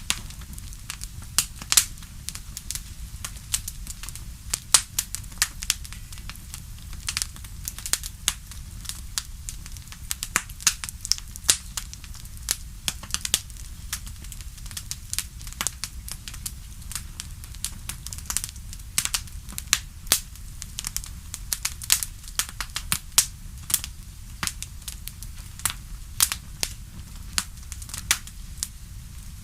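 Fire in a fireplace crackling: irregular sharp pops and snaps, several a second, over a steady low rumble.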